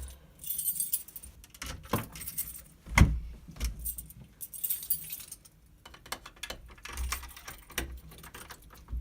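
A bunch of keys jangling as a stiff door lock is worked, with several sharp clunks, the loudest about three seconds in.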